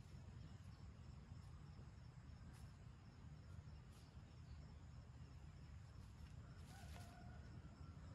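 Near silence: faint outdoor ambience with a steady low rumble and a faint steady high tone, broken by a few faint clicks.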